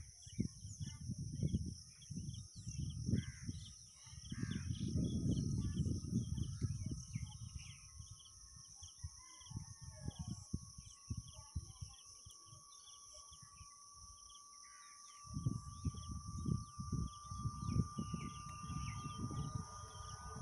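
Wind gusting on the microphone in surges, with birds chirping and a steady high insect buzz. A faint steady high tone grows louder in the second half.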